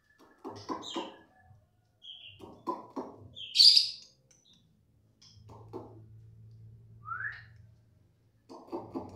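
White-rumped shama (murai batu) giving a few separate sharp calls: the loudest about four seconds in, and a short rising one near the end. Short clattering sounds come between the calls.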